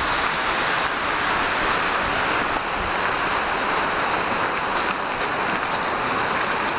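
Steady rushing outdoor ambience of wind and lake water, even in level, with no distinct events.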